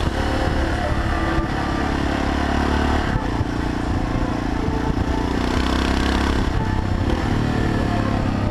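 Honda FMX 650's single-cylinder engine running under way, heard on board with wind noise over the microphone; its note changes about three seconds in.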